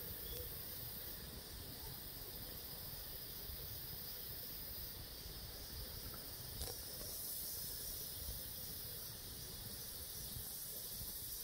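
Steady faint outdoor background noise: a high hiss over a low rumble, with one small click about six and a half seconds in.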